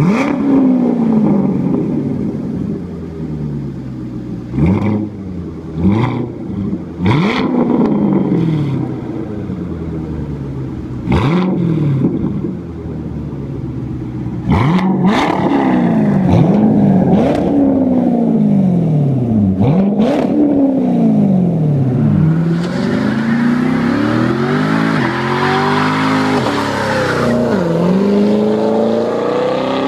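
2014 Corvette Stingray's V8 through a custom performance exhaust, free-revved again and again, the pitch rising and falling with each blip and sharp cracks between some revs. Near the end the engine is held high during a burnout, with the hiss of the spinning rear tyres over it.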